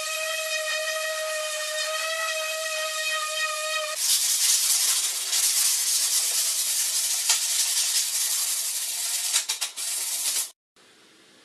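Corded electric orbital sander running on plywood: a steady high motor whine at first, then, about four seconds in, a louder rough hiss of abrasive rubbing on wood with a few sharp clicks. It cuts off suddenly near the end.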